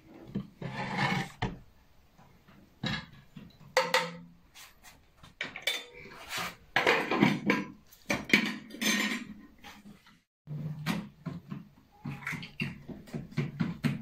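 Dishes and cutlery clattering and knocking irregularly as the food is handled, with a brief break about ten seconds in.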